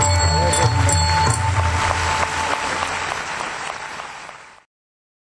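The last held notes of a devotional abhang performance with tabla accompaniment end about a second in, and audience applause rises in their place, fading and then cutting off suddenly near the end.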